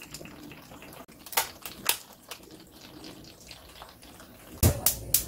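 Blue crabs being handled in a stainless-steel sink: scattered sharp clicks and clatter of shells and legs. About four and a half seconds in there is a thump, then a quick run of clicks.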